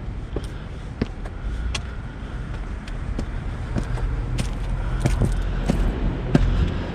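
Footsteps climbing stairs, about one and a half steps a second, over the rumble of passing car traffic, which grows louder in the second half.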